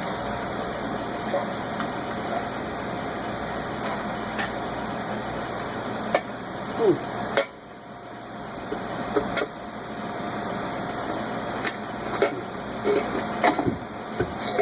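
Scattered metal clinks and knocks of hand tools and loose parts being handled while working in a car's engine bay, with a few short squeaks, over a steady background hum.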